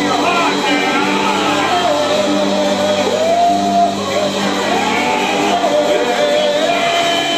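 Live electric blues: an electric guitar playing, with a man singing over it.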